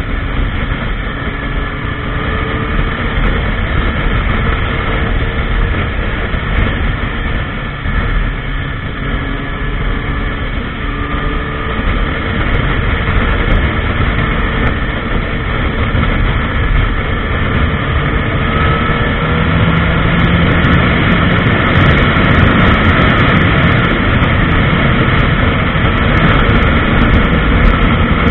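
Honda CBR1000RR's inline-four engine running at highway speed under heavy wind rush, its pitch and loudness climbing slowly through the second half as the bike speeds up.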